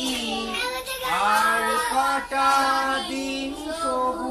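Young voices singing a song, a run of held notes stepping up and down, with a short break for breath a little past two seconds in.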